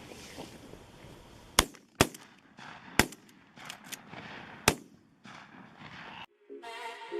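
Four shotgun shots, the first two half a second apart, a third a second later and the last near the middle, with faint outdoor hiss between them.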